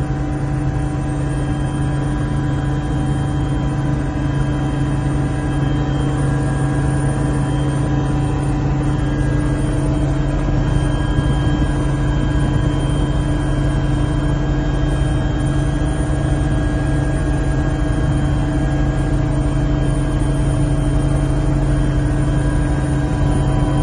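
Helicopter's engine and rotor running steadily, heard from inside the cabin: an even low drone with several constant whining tones above it.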